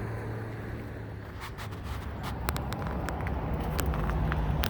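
Low, steady motor-vehicle engine rumble with scattered light clicks, growing a little louder toward the end.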